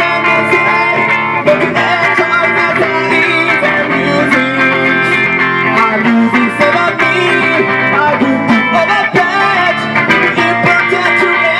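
Live rock band playing loud, with electric guitars and drums, heard from inside the crowd in front of the stage.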